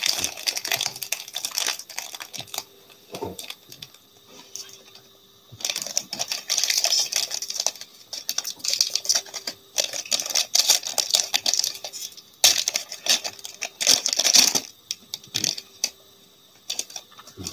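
Foil trading-card pack crinkling and tearing as it is handled and opened by hand: repeated bursts of rustling, with small clicks and taps in between.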